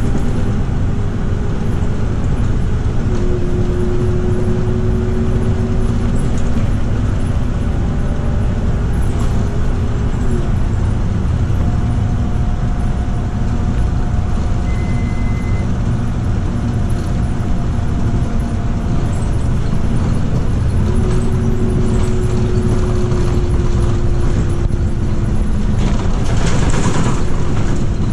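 Scania K310UB bus's 8.9-litre five-cylinder diesel and ZF Ecomat automatic gearbox running under way, heard from inside the bus with road and tyre noise. A whine in it slides and steps in pitch as the speed changes. There is a brief beep about halfway and a short hiss of air near the end.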